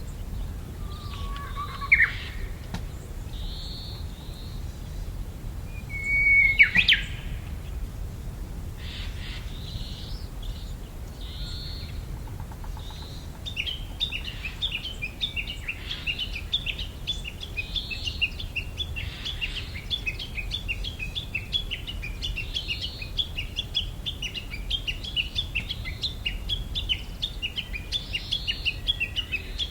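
Birdsong: twice a long whistled note sliding up into a short phrase, which the recordist takes for a Japanese bush warbler's song but is unsure of, wondering whether a mimicking Chinese hwamei could be the singer. From about halfway on, a fast, continuous twittering chatter runs on.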